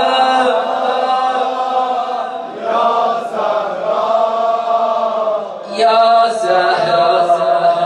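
Mourning lament (noha) chanted in long, drawn-out melodic phrases without clear words, with short breaks about two and a half and about six seconds in.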